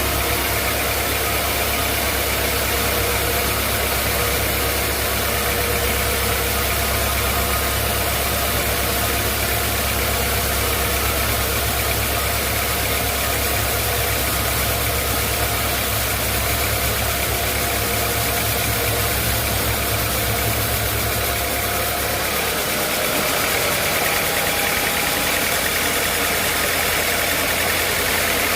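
Sawmill machinery running steadily with a loud, engine-like drone. The low hum changes about three-quarters of the way through.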